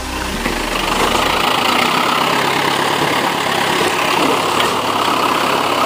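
1999 Hummer H1's diesel engine idling as the truck crawls slowly over rough ground, a steady rough running sound.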